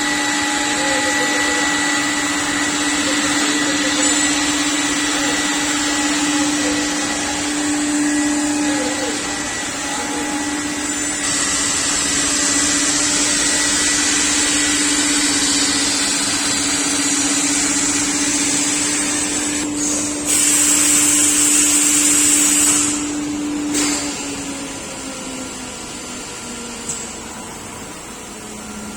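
CNC panel-cutting router running, its spindle giving a steady whine over a hiss of cutting and dust extraction. A louder hiss sounds for about three seconds, then the spindle's pitch falls and the machine quietens as it winds down near the end.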